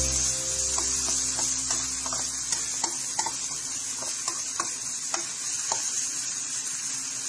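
Diced ham, garlic and onion sizzling in butter in a frying pan, with a spatula scraping and tapping against the pan as it is stirred.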